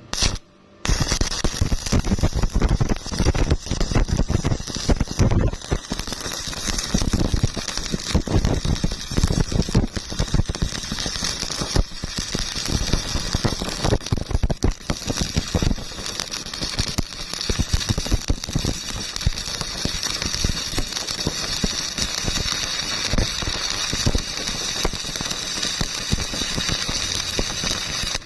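Electric welding arc crackling and sizzling steadily as a bead is run. It starts with two short bursts and then holds continuously from about a second in.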